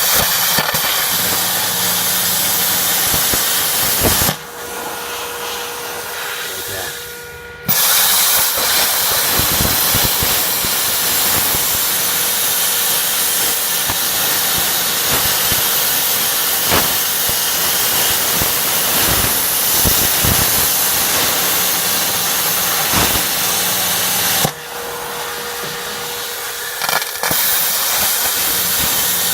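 Plasma cutter torch, a homemade unit converted from a stick welder, hissing loudly with a faint crackle as air and arc blow through while cutting, in three long stretches. In the two breaks, only the machine's steady hum is left.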